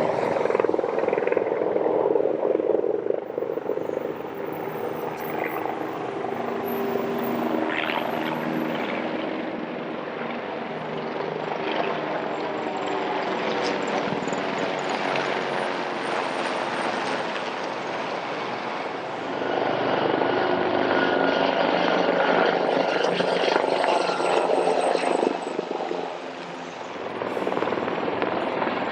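Helicopters flying over in formation, the rotor noise swelling and easing as they pass, growing louder about two-thirds of the way through and dipping briefly near the end.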